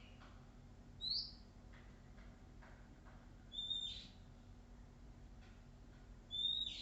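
Wild Oriental magpie-robin calling: three loud, short whistled notes roughly two and a half seconds apart, with a few faint softer notes in between.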